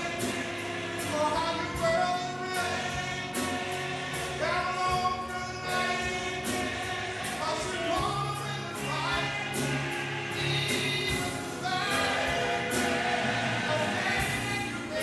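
Church choir singing a gospel song, with instruments holding low notes beneath and a regular beat of sharp strokes.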